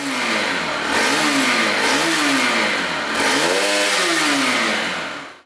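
Bajaj Pulsar NS200's single-cylinder engine being revved in several blips, its pitch rising and falling each time, under a loud hiss. It cuts off suddenly at the end.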